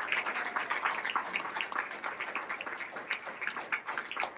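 A small audience applauding, a dense patter of many hand claps that gradually thins out and softens.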